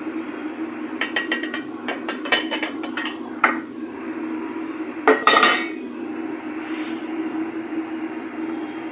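Stainless steel frying pan and pot clinking and scraping together as an omelette is slid from the pan into the pot: a quick run of clinks from about one to three and a half seconds in, then a louder clank about five seconds in, over a steady low hum.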